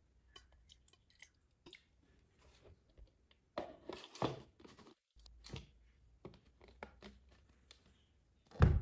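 Handling of a small plastic mini fan and its packaging: scattered light clicks and rustles, a louder stretch of rustling about halfway through, and a heavier knock near the end.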